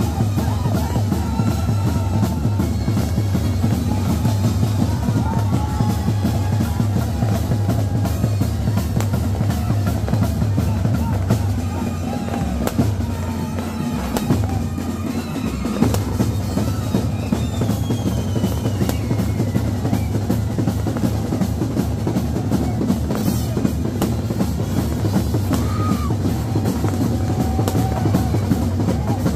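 Live festival drum band playing a fast, dense beat of bass drum and snare. The heavy bass drum thins out for a few seconds about halfway through, then comes back.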